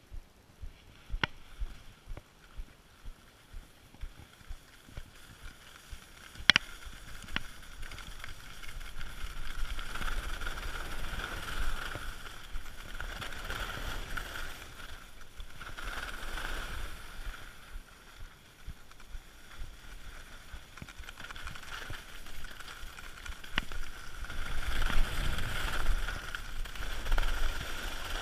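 Skis sliding and scraping over firm, packed snow during a downhill run, a steady hiss that swells and eases with the turns and is loudest near the end. Before that, for the first six seconds or so, light ticks come about twice a second, then one sharp click, as the skier sets off.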